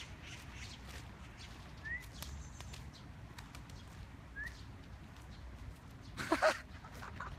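Quiet outdoor background with two short rising bird chirps, about two and a half seconds apart. A brief, louder noise comes near the end.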